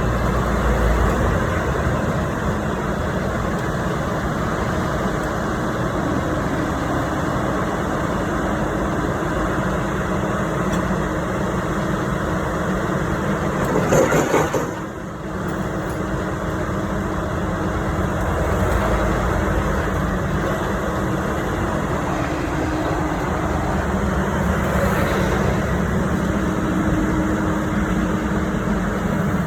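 Diesel engine of a Bauer BG 20 H rotary drilling rig running steadily, with a brief louder burst of noise about halfway through.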